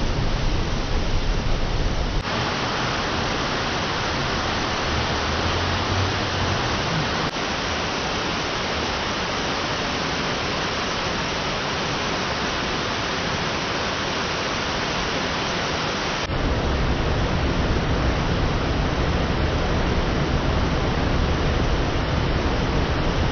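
Waterfall: a steady, dense rush of falling water, changing abruptly about two seconds in and again about sixteen seconds in as different stretches of it cut together.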